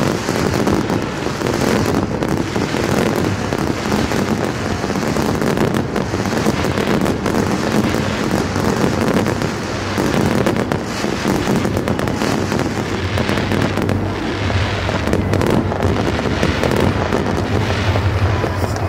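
Aerial fireworks display: a dense, irregular barrage of bangs and crackles from bursting shells.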